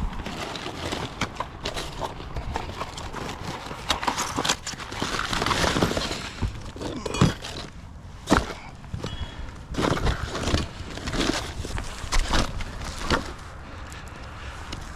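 Irregular knocks, thuds and scrapes, with what sounds like footsteps.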